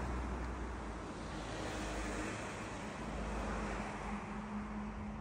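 Road traffic passing close by on a highway: a rushing tyre noise that swells and fades as cars go past, with a steady engine hum growing stronger in the second half as more vehicles approach.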